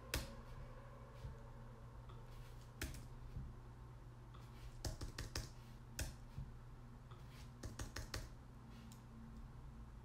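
Computer keyboard being typed on: faint, scattered key clicks in short clusters, over a low steady hum.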